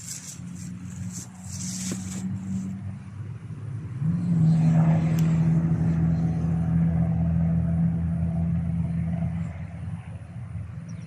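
A small engine running nearby, its pitch and loudness stepping up about four seconds in, holding steady, then easing off near the end. A few clicks and rustles come in the first two seconds.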